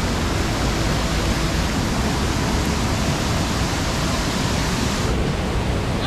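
Waterfall: a steady rush of falling water.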